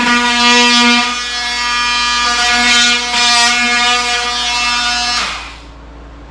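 Handheld power tool motor running with a steady buzzing tone, easing off and picking up again, then stopping about five seconds in.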